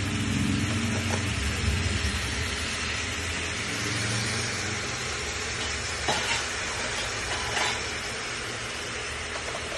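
Chicken pieces and green chilies sizzling in a hot pan: a steady hiss over a low rumble, with two light knocks in the second half.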